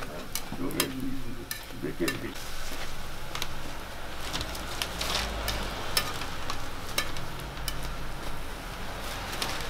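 Sweet pumpkin hotteok frying in oil on a flat griddle, sizzling steadily. Metal tongs click against the griddle many times as the pancakes are lifted and turned.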